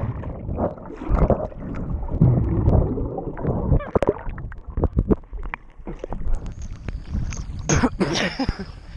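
Muffled rushing and gurgling of lake water around a submerged action-camera microphone. Near the end it turns into brighter splashing as the camera breaks the surface.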